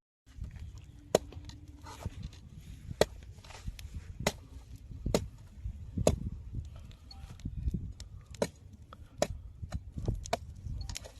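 Chopping with a blade on a wooden board: irregular sharp knocks, about one a second.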